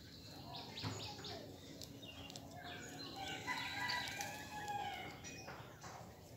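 Birds chirping and calling: a few quick high chirps about a second in, then a run of short rising and falling calls in the middle.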